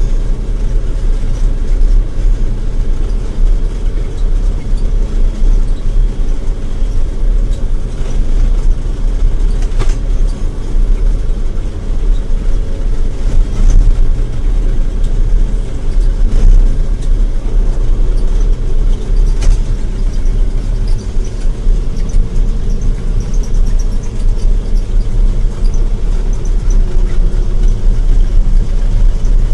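John Deere 9700 combine running steadily under load while harvesting wheat: a loud, even low drone with a couple of faint clicks.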